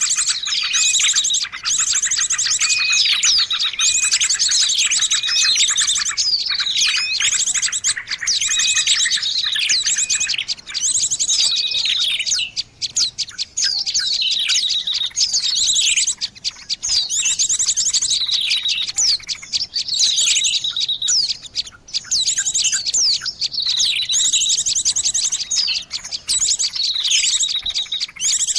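Bird song used as a lure call: rapid high-pitched chirps and trills with quick falling notes, repeated phrase after phrase with only short breaks.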